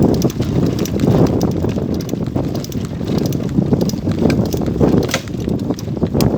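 Bicycle rattling and clattering over a rough dirt forest trail, with wind buffeting the microphone.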